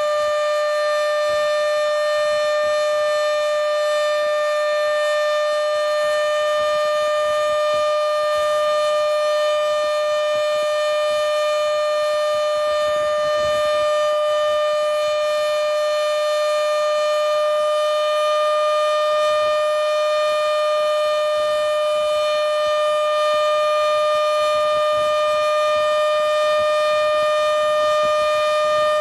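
Modified Federal Signal Model 7B outdoor warning siren sounding its full steady alert: one loud, unbroken tone at about 600 Hz, holding its pitch and level.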